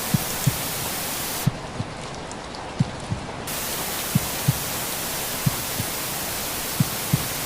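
Recorded heartbeat for baby sleep: soft low lub-dub double thumps about every 1.3 seconds, over a steady white-noise hiss. The hiss turns softer and duller for about two seconds near the start.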